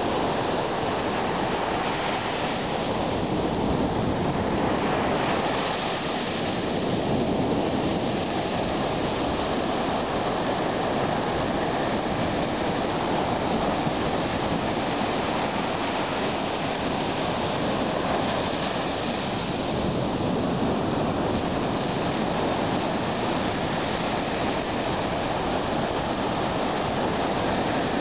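Ocean surf breaking and washing up the sand: a continuous rush of water, swelling a little now and then.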